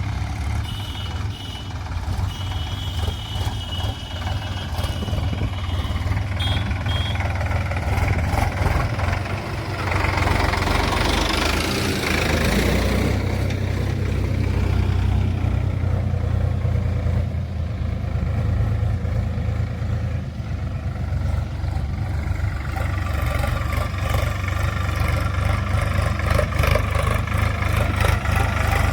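Heavy diesel engine of a tractor or backhoe running steadily. A high, repeating beep sounds in the first several seconds, and a louder rush of noise swells and fades about ten to thirteen seconds in.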